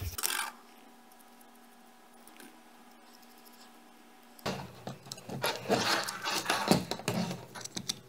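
Quiet room tone with a faint steady hum for the first half, then from about halfway irregular rubbing, scraping and clicking as the hard plastic seat-belt buckle housing is handled, glue is dabbed on with a toothpick and the cover halves are fitted together.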